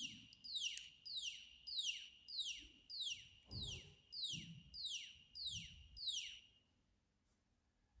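Piezo buzzer of a micro:bit gas-leak alarm sounding a repeated high falling chirp, about two a second, roughly a dozen times, then stopping a little after six seconds in. The alarm is set off by the MQ-4 sensor detecting gas from a lighter.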